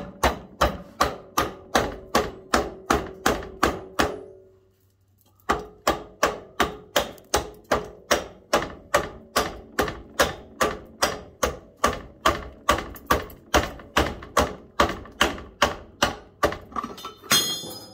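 Hammer striking a freshly welded steel square tube to chip off the weld slag: steady blows about two to three a second, each leaving the tube ringing briefly. The hammering stops for about a second around four seconds in, then resumes, and a short metallic clatter follows near the end.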